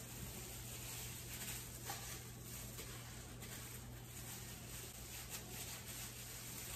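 Faint, soft handling sounds of a plastic-gloved hand spreading chopped vegetables through raw egg mixture in a pie crust, over a low steady hum.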